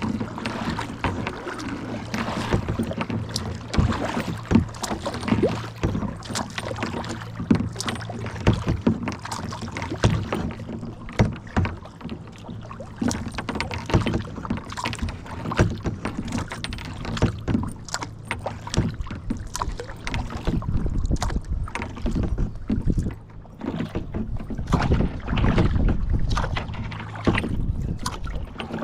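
Kayak being paddled: irregular splashes and knocks of the paddle working the water and against the hull, over a low rumble of water moving past the boat.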